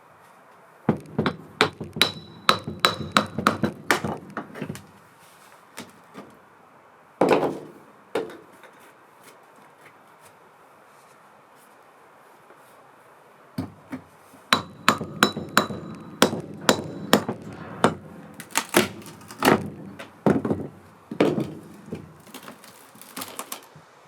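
Hammer blows on the wooden door, in quick runs of strikes, some with a short metallic ring. A first run comes about a second in, two single knocks follow, then a pause, and a longer run of strikes fills the second half.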